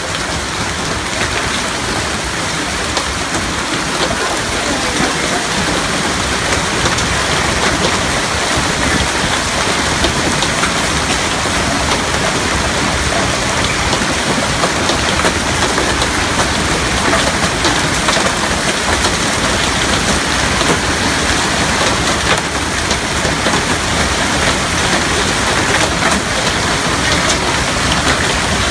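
Heavy hailstorm: golf-ball-size hailstones hitting pavement, lawn and parked cars in a dense, continuous clatter of countless impacts, growing slowly louder.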